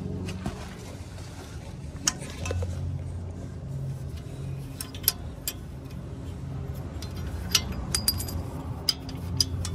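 Sharp metallic clinks and taps from sway bar end-link hardware (bolt, cupped washers and bushings) being handled by hand, scattered singly at first and coming closer together over the last few seconds.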